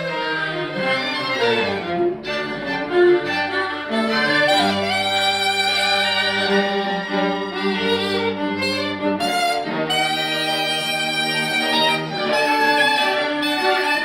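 Live chamber ensemble of violins, viola and cello playing a bowed passage: held notes and chords over a low cello line, with a melody wavering above.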